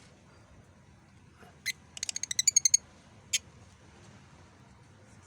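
Pet lovebird chirping: one sharp high chirp, then a quick run of about a dozen chirps, then a single chirp a moment later.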